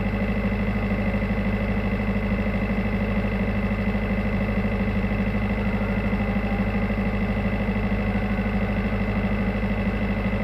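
Tugboat's diesel engine running steadily with an even low rumble.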